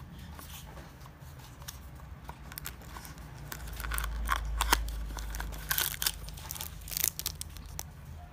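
Cardboard box and plastic wrapper of a piston ring kit being handled and opened: crinkling and crackling, with many small clicks that are busiest in the middle and later part.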